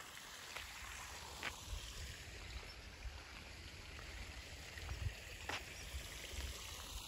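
Water splashing steadily from a stone garden fountain, heard as an even hiss, with a low rumble underneath and a few faint clicks, one about one and a half seconds in and one near the end.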